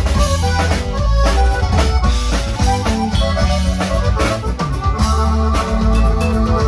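Band music: a strong bass line and drums under sustained melody notes, playing without a break.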